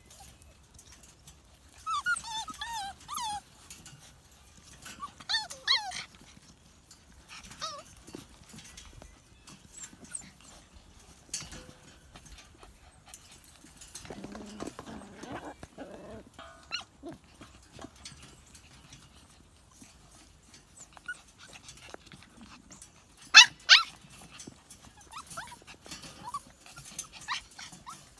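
Siberian husky puppies, seven weeks old, whining and yipping on and off in short, high, wavering cries. Two short, sharp, loud sounds come about two-thirds of the way through.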